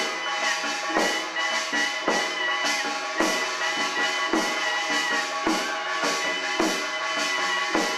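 Accompanying music for a Jeolla-do ssitgimgut, a Korean shamanic cleansing ritual. A deep drum or gong stroke falls about once a second, beneath sustained ringing tones and a wavering, ornamented high melody line.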